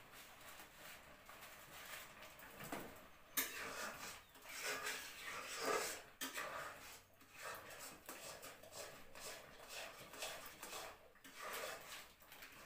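Faint crinkling and rustling of a small plastic sugar packet being torn open and tipped out over a wok, with a sharp click about three seconds in.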